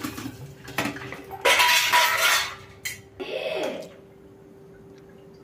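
Stainless-steel idli plates and steamer pot clattering and scraping against each other as the stacked plates are lowered into the idli cooker and the lid is set on. The loudest clatter comes between about one and a half and two and a half seconds in, with a shorter one a second later.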